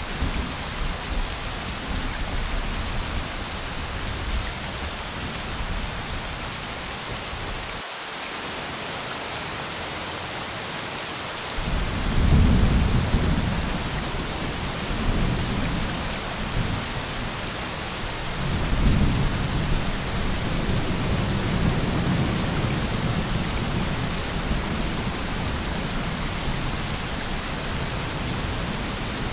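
Thunderstorm: steady rain hiss with two long rolls of deep thunder, the first about twelve seconds in and the second a few seconds later.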